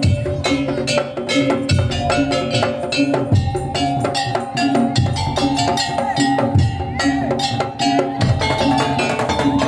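Madurese tongtong (daul) music: wooden slit drums, drums and cowbell-like metal percussion playing a fast, steady beat, with a melody of held notes stepping over it.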